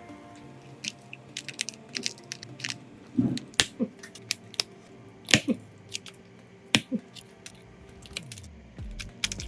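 Irregular sharp clicks and taps of small repair tools handling a phone, with a few louder knocks among them.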